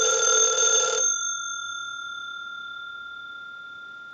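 The bell ringer of an RTT-56A Belgian rotary desk telephone ringing on a test ring cycle. The ring stops about a second in, and the bell tone then fades slowly during the silent part of the cycle.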